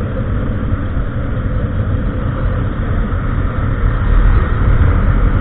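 Riding noise from a motorcycle on the move: wind rushing over the microphone, with the Honda XRE 300's single-cylinder engine running underneath. It gets louder about four seconds in.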